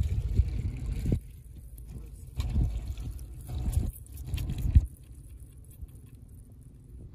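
Water poured from a jug over shredded carrots in a perforated metal colander, splashing through the holes onto the ground as hands toss the carrots. The pouring comes in uneven bursts and stops about five seconds in, after which it goes much quieter.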